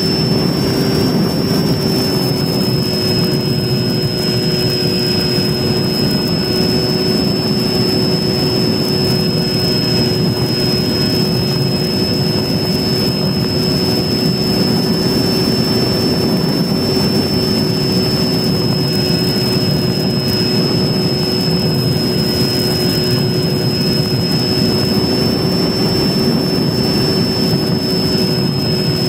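Sunnysky 2216 1250 KV brushless electric motor spinning an APC 9x6 propeller on a Mini Talon RC plane in flight, holding steady throttle: a constant high whine over dense rushing wind noise.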